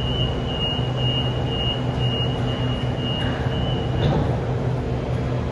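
Sydney Trains Waratah electric train at an underground platform: a steady high-pitched squeal that stops with a short clunk about four seconds in, over the train's steady low hum.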